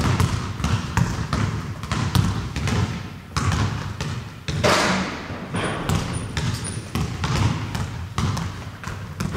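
Irregular thumps and knocks, about two a second, over a steady noisy hiss.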